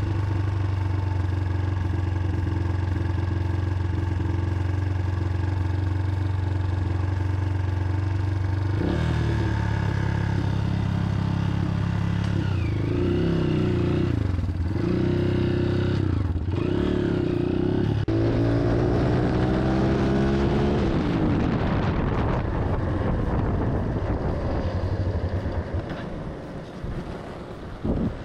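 Big-bore four-stroke dirt bike engine running after start-up: a steady idle, then several quick throttle blips from about twelve seconds in, with the pitch rising and falling. A longer rev falls away around twenty seconds, and the engine dies down near the end.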